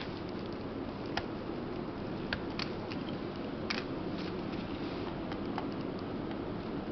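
Light clicks and taps of tools and plastic parts while a Micromax P310 is taken apart: about six scattered clicks over a steady hiss and hum.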